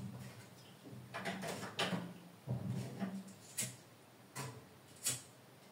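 Scattered short clicks and knocks, about seven over five seconds, as a kitchen oven is switched on and lit.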